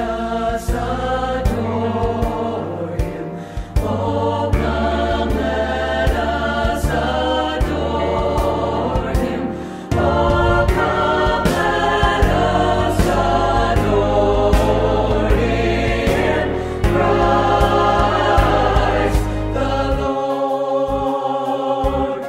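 Recorded Christmas song: a choir sings over a band with heavy bass and a steady beat. The bass and drums drop out about two seconds before the end.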